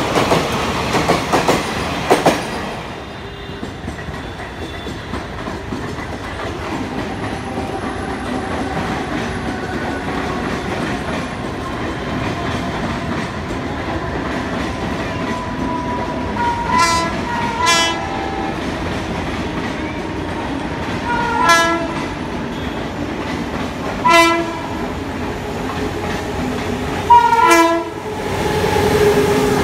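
A passenger train's coaches rattle past over the rail joints for the first couple of seconds, then it settles to a steady background rush. From about halfway, an approaching Indian Railways electric locomotive sounds its horn in five short blasts, the last the loudest, and its train begins to roll past near the end.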